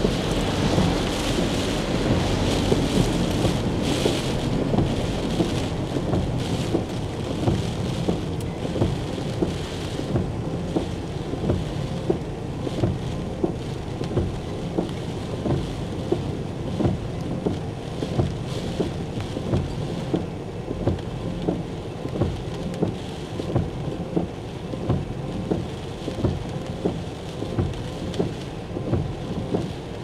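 Gale-force wind and heavy rain, a dense steady rushing noise. Short knocks recur about every three-quarters of a second throughout.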